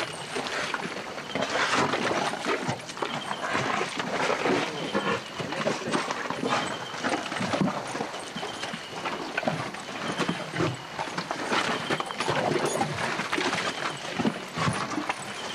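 Pack animals of a trekking caravan on the move: a busy, irregular run of knocks and clatter.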